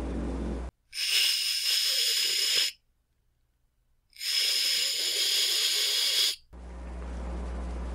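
Domestic cat hissing twice, each an airy hiss of about two seconds with a second or so of silence between: an angry cat's warning.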